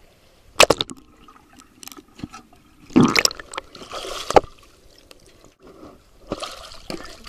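Swimming-pool water splashing and sloshing right at the microphone, in three short bursts: about half a second in, a longer one around three to four seconds in, and another near the end.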